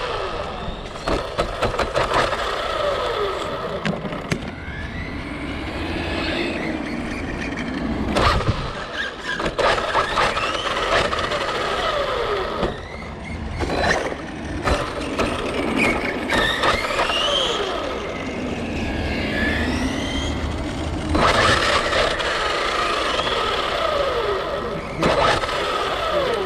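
Several radio-controlled cars being driven hard, their motors whining and repeatedly gliding up and down in pitch as they speed up and slow down, with occasional sharp knocks.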